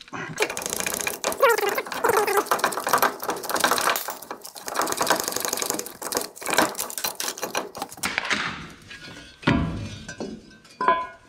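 Ratchet wrench clicking in fast runs as bolts are turned, then a few separate metal clunks, the loudest about nine and a half seconds in.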